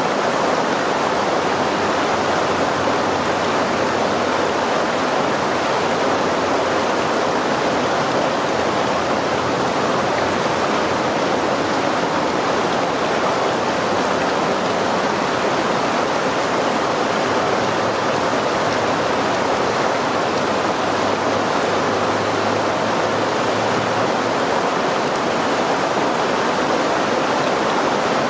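Flowing stream water making a steady, even rush.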